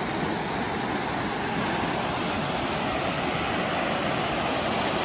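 Steady rushing of a mountain waterfall, a loud even wash of falling water.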